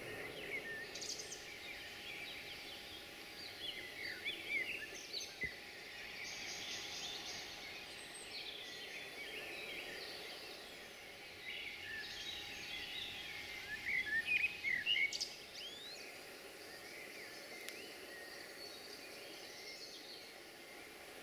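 Several birds chirping and singing in short calls and trills over a faint steady background hiss, busiest about a quarter of the way in and again about two-thirds in.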